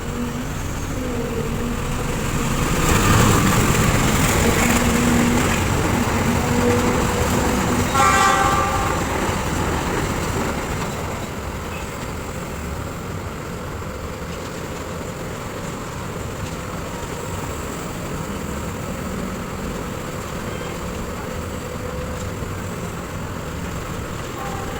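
A motor vehicle passes close by, its noise swelling for several seconds, and gives a short horn toot about eight seconds in. A steady engine hum runs underneath throughout.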